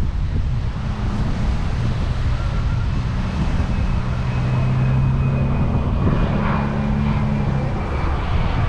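F-35 Lightning II jet engine running through a flypast, a loud steady rumble with a low hum in it.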